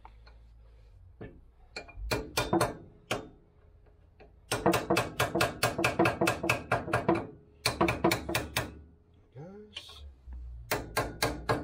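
Socket ratchet clicking in quick bursts as a brake caliper mounting bolt is worked, with the longest run of clicks in the middle.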